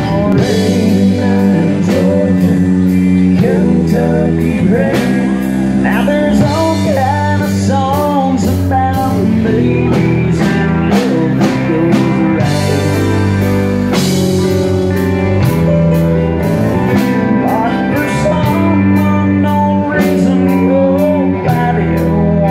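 Live country band playing a song with electric guitar, bass, keyboard and drums at a steady beat. A harmonica, played into a microphone cupped in the hands, carries a bending lead line over the band.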